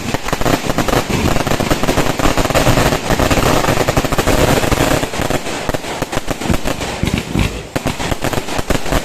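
Fireworks going off in a rapid, continuous crackle of bangs, densest around the middle and thinning into more separate cracks in the second half.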